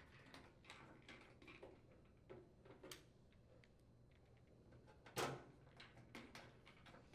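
Faint clicks and ticks of a hand screwdriver driving screws into a washing machine's sheet-metal rear panel, with one louder brief knock about five seconds in.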